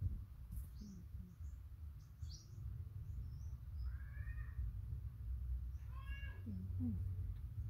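Pet macaque monkey giving two short squeaky, meow-like calls a couple of seconds apart, the second about six seconds in, over a low rumble, with faint high chirps in the first couple of seconds.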